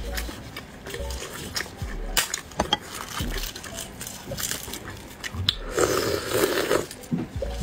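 Shell of a broth-braised fertilised egg (huozhuzi) being cracked and peeled by gloved fingers: irregular sharp crackles and clicks, with a little wet sloshing of the broth. Near the end come mouth sounds of biting and chewing the egg.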